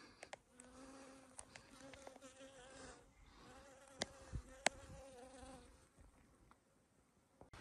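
Faint steady buzz of a flying insect hovering near the microphone, lasting about five seconds, with two sharp clicks around four seconds in.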